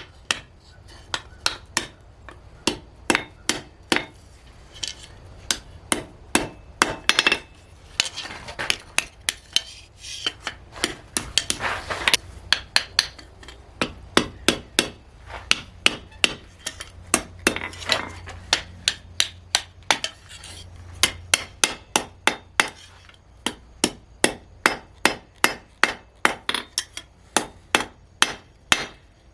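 Hammer striking hot steel on an anvil: sharp ringing blows in runs at about three a second, with short pauses between runs, as the piece is forged.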